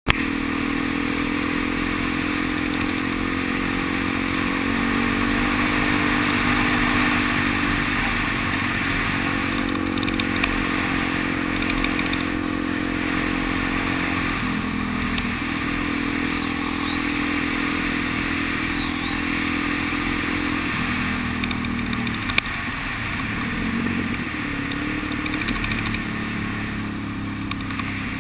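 Dual-sport motorcycle engine running steadily while riding, with wind rushing over the helmet-mounted microphone. The engine note drops and picks up again about halfway through and once more a little later, as the throttle eases and comes back on.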